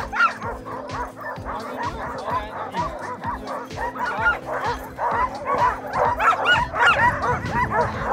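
A team of sled dogs barking and yipping, many dogs at once in a dense, overlapping chorus that grows busier in the second half, as harnessed dogs do when eager to run.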